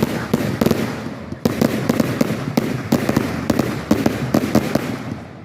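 Fireworks going off in quick succession: many sharp bangs and pops over a steady crackle, with a fresh volley starting about a second and a half in.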